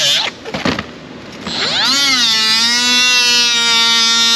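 Small electric power tool used to cut open a plastic blister pack. It stops briefly with a few clicks, then spins back up with a rising whine and runs steadily at a fixed pitch.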